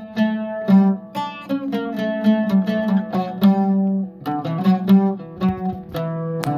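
Oud playing a quick melody of single plucked notes, a saz semai in the Acemkürdi makam.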